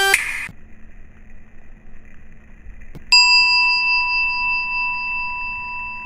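A faint steady hum, then about three seconds in a single struck bell sound effect rings out and slowly fades over several seconds, a comic cue for a blunder.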